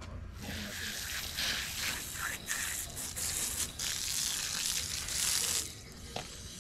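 Garden hose spray nozzle spraying water, a steady hiss that starts about half a second in, breaks off briefly a few times as the trigger is eased, and cuts off near the end.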